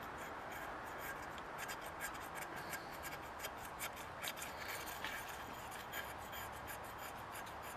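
Razor blade, wetted with gasoline, scraping paint off a small model truck part in quick light strokes. A run of faint scratchy ticks starts about a second and a half in, over a steady background hiss.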